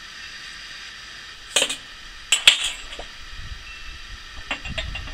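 Ceramic teapot clinking as it is handled: a sharp clink about a second and a half in, a louder one about a second later, then lighter clicks and knocks near the end.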